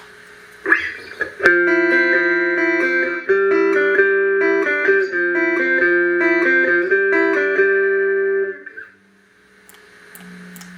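Clean electric guitar played through a Boss GE-7 equalizer pedal into Roland JC-120 amps: one struck note, then a phrase of picked notes and chords that rings for about seven seconds and stops. Afterwards only the amp's low hum and hiss remain.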